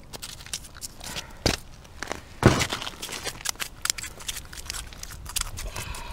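Close crackling, crunching and clicking of ice and snow, with two louder knocks about one and a half and two and a half seconds in, as a just-caught roach is swung out of an ice-fishing hole and handled on the ice.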